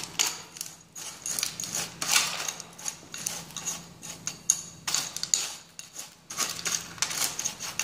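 Metal hand scoop scraping and clinking against a metal tray in irregular strokes as gravelly soil is mixed with added water.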